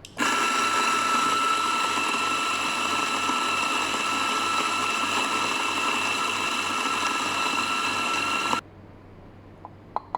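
DF64 electric coffee grinder with 64 mm flat burrs running, a steady motor whine over a grinding rush. It starts at once, runs for about eight and a half seconds and stops suddenly, followed by a couple of light clicks near the end.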